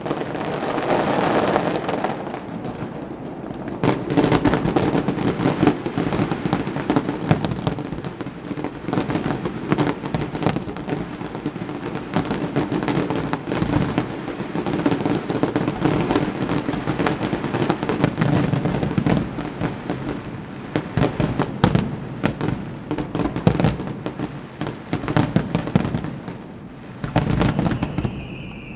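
Aerial fireworks bursting in rapid succession: a dense, continuous run of bangs and crackles with heavier booms, easing briefly near the end.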